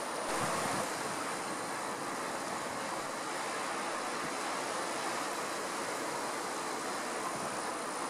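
Steady rushing outdoor background noise with a thin, high steady tone, swelling slightly about half a second in.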